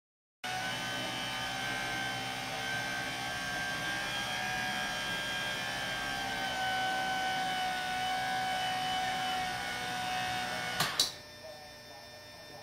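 Saturn windshield wiper motor driving a stainless steel iris, its laser-cut blades sliding closed, with a steady mechanical whine made louder by a motor mount not yet isolated. About eleven seconds in there are two sharp clicks and the whine stops.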